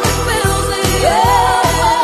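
Christmas music with jingling sleigh bells over a steady beat, about two and a half beats a second, and a gliding melody line.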